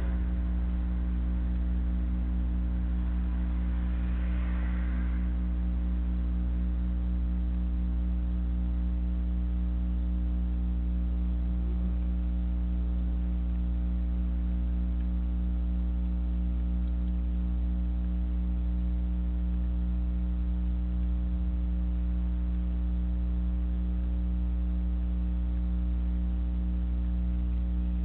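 Steady electrical mains hum on a security camera's audio, a low drone with a stack of higher overtones that does not change. A faint, brief hiss comes through about four seconds in.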